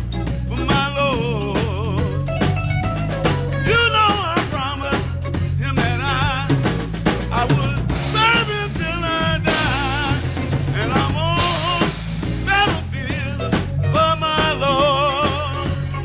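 Band music: a singer with a wavering, vibrato-laden voice over a drum kit with snare and rimshot hits and a steady bass line.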